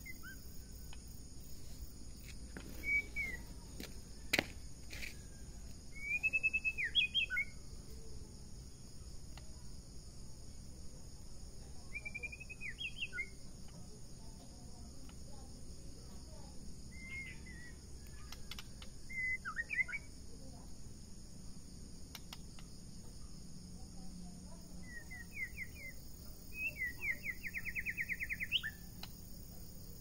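White-rumped shama (murai batu) singing short, clear whistled phrases every few seconds, with a fast trill near the end. A steady insect buzz runs behind it, and there is one sharp click about four seconds in.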